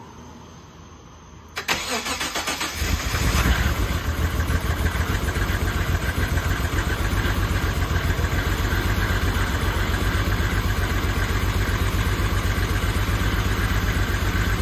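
Mitsubishi 3000GT VR-4's twin-turbo 6G72 V6 cold-started: the starter cranks briefly about a second and a half in, then the engine catches, flares once and settles into a steady idle. The engine has been running lean at cold start and idle.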